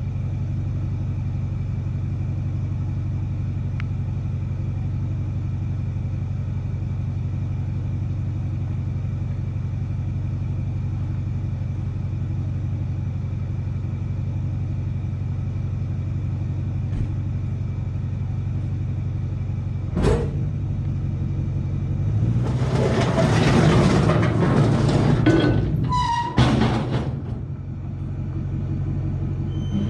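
An engine idling steadily. About two-thirds of the way through there is a knock, then several seconds of loud scraping and clanking of steel with a brief squeal as the flatbed trailer is dragged out from under the forklift, which had dug into the ground.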